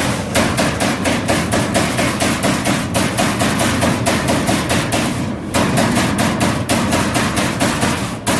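CNC turret punch press hammering through sheet metal in a rapid, even run of strikes, about seven a second, over a steady machine hum, with short breaks about three and five seconds in.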